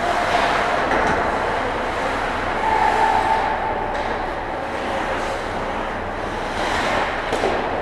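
Ice hockey play heard close to the ice: a steady rush of skate blades carving and scraping the ice, with a sharper scrape near the end.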